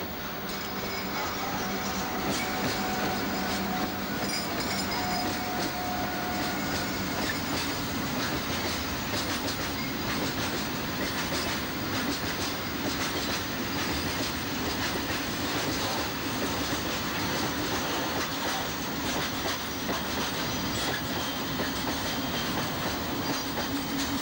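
Freight train hauled by a series 276 electric locomotive, with steel-coil wagons, passing close by: a steady rumble of wheels on rail with a rapid run of clicks over the rail joints. A hum from the locomotive goes by in the first several seconds.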